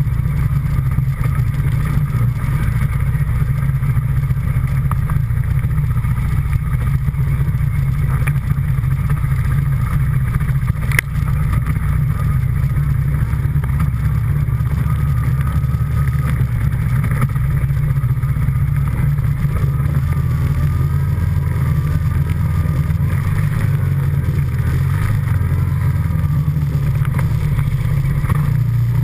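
Utility ATV engine running steadily while riding, a constant low hum with no change in revs.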